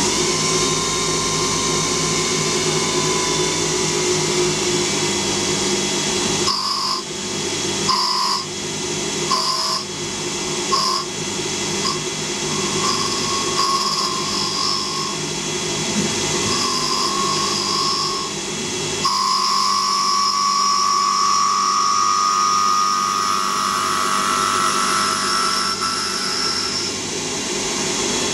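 CNC lathe spindle running while a carbide insert turns a Victorian ash timber dowel. The cutting whine comes and goes for a stretch in the middle. Then it holds as a continuous cut, its pitch rising slightly near the end.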